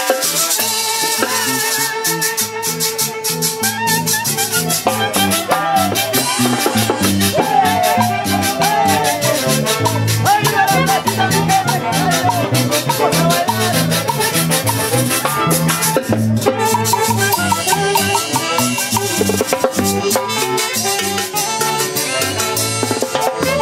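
Lively Latin-American dance music from a band, with a steady beat and a wavering melody line over it.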